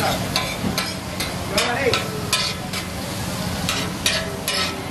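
Metal spatula striking a flat griddle in quick, uneven strokes, chopping and mixing kothu parotta with egg, over the steady sizzle of frying.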